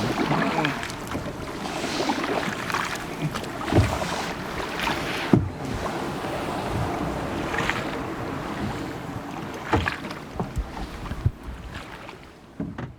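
Water and wind noise around a small boat, with a few scattered knocks and bumps. It fades down near the end.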